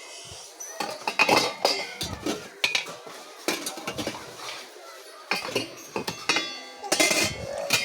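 Metal kitchenware and utensils being handled, with irregular clinks and clatters that ring briefly.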